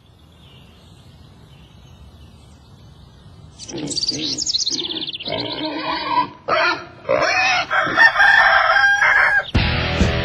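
Farm animal calls, four or five in a row with wavering pitch, after about three and a half seconds of faint low hum. Electric guitar music cuts in just before the end.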